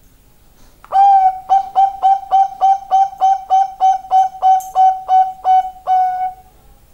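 Zebra dove (perkutut), a Bangkok-type song bird, cooing: a longer opening note, then a quick, even run of short clear notes at about three a second, closing on a longer held note.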